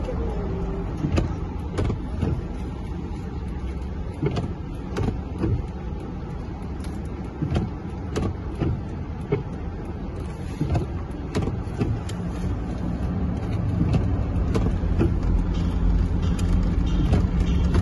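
Inside a car driving through heavy rain: a steady low engine and road hum under the rush of rain, with irregular taps scattered throughout. The low rumble grows louder in the last few seconds.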